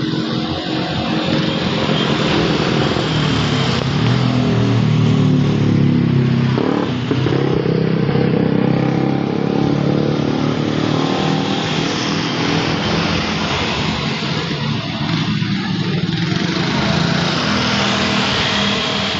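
A motor vehicle engine running continuously, its pitch shifting up and down, over a steady hiss.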